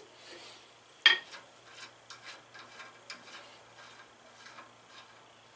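Metal clinks and light irregular ticks of hand tools and parts on a race car's steering linkage as it is unbolted, with one sharp metallic clink about a second in.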